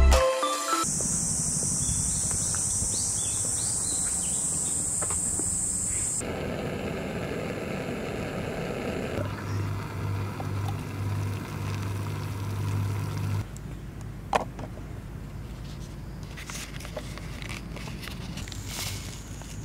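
Outdoor ambience during camp coffee preparation: a steady high-pitched drone for the first few seconds, then a lower hum. There is a single sharp light click about three-quarters through as a camping pot and a pour-over coffee dripper are handled.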